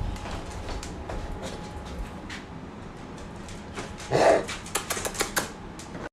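A dog's claws clicking and tapping on a hard floor as it walks, with a short louder sound about four seconds in.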